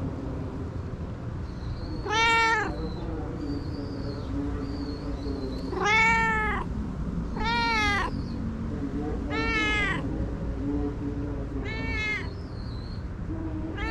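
Tabby-and-white cat meowing five times, a few seconds apart, each meow a short call that rises and falls in pitch.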